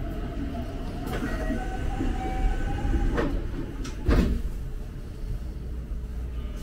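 JR commuter train running, heard from inside the front car: a steady rumble with a faint whine that rises slightly in pitch and fades about three seconds in. Three or four sharp knocks, the loudest about four seconds in.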